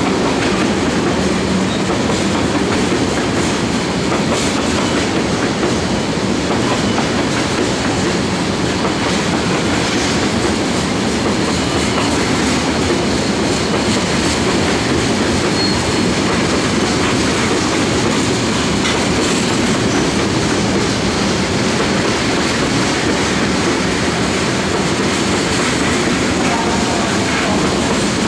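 Freight train of pressurized LPG tank cars rolling past: a steady rumble and clatter of steel wheels on the rails, with no letup.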